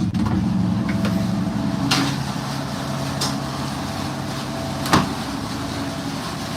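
A fishing boat's engine running with a steady low drone, with a sharp knock about two seconds in and a louder one about five seconds in.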